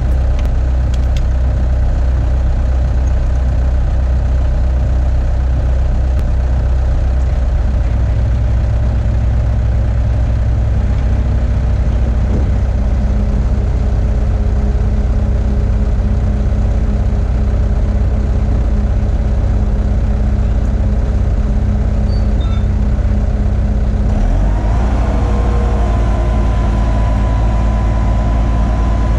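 Bobcat 864 tracked loader's diesel engine running steadily at idle. Near the end the engine note changes and a steady whine joins in as the loader is put to work.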